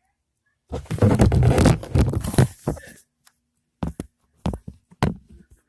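Hands squishing and pulling homemade slime close to the microphone: a loud crackling squelch for about two seconds, then several short sharp clicks and pops.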